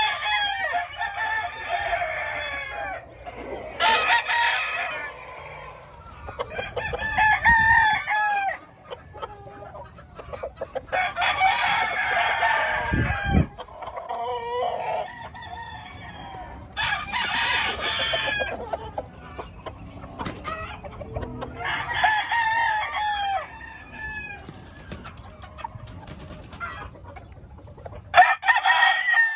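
Gamecock roosters crowing, about seven crows a few seconds apart.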